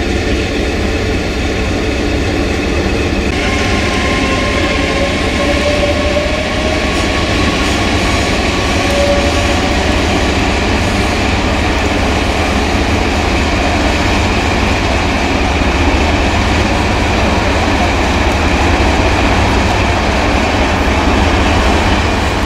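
Hastings diesel-electric multiple unit 1001's English Electric diesel engine idling at the platform, a loud, steady drone. About three seconds in the sound gets brighter, and faint wavering whines come and go over the next few seconds.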